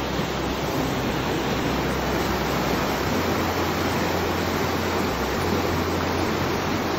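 Fast glacial meltwater river rushing and churning over its stony bed: a steady, even roar of white water.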